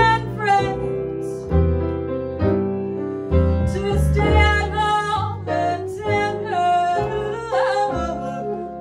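Small jazz combo playing an instrumental passage: upright bass and archtop guitar under a moving solo melody line.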